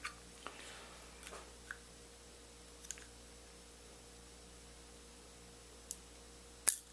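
Scattered faint clicks of small metal lock parts as the driver pins and springs are taken out of a pin-tumbler rim cylinder, with one sharp, loud click near the end.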